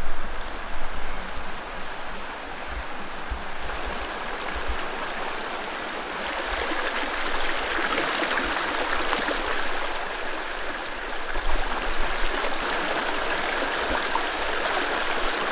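Shallow river rushing over stones, a steady noise that grows louder about six seconds in.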